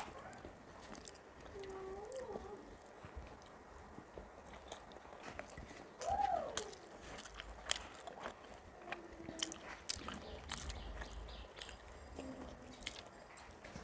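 Close-miked chewing and mouth sounds of a person eating rice with fried vegetables and curry, with many small wet clicks and crunches. A short pitched sound rises and falls about six seconds in.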